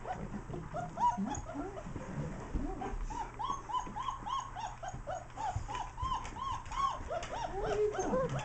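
Four-week-old German Shepherd puppies whimpering: a string of short, high whines that each rise and fall, coming quickly from about three seconds in, with a few lower whines near the start and the end.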